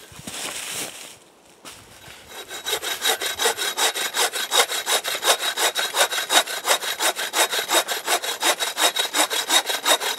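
A short metal-framed bucksaw cutting through a log. The saw starts about two seconds in and settles into quick, even back-and-forth strokes, several a second.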